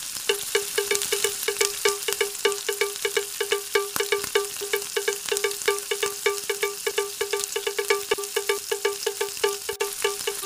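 Background music: a quick run of short, bell-like notes repeated on one pitch, several a second.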